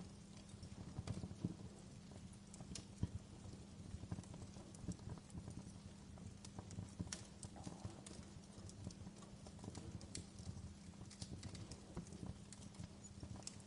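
Wood fire crackling in a fireplace: irregular sharp pops and snaps, a few louder ones, over a low steady rumble.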